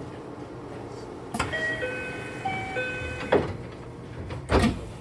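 Door-closing chime of a 227 series train: a two-note chime played twice, then the doors thudding shut with two heavy knocks, the second one loudest near the end.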